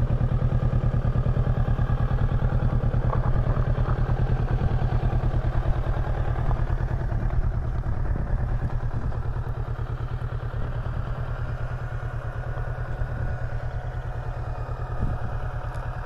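Kawasaki Versys 650's parallel-twin engine idling steadily with an even low pulse, a little quieter in the second half.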